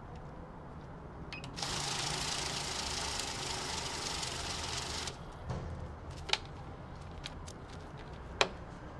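Safescan banknote counter running for about three and a half seconds as a stack of 100 bills riffles through its feed, then cutting off abruptly when the count is done. Two sharp taps follow, the second the loudest, as the counted stack is handled.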